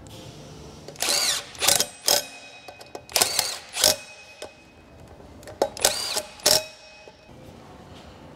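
Ratchet tightening bolts at a motorcycle wheel hub, in three short bursts of ratcheting about two seconds apart.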